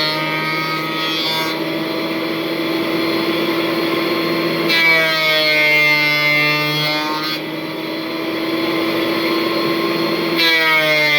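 Thickness planer running with a steady motor hum, with boards fed through it in repeated passes: one cut ending about a second and a half in, another from about five to seven and a half seconds in, and a third starting near the end. During each cut the machine's pitch dips under load and then recovers.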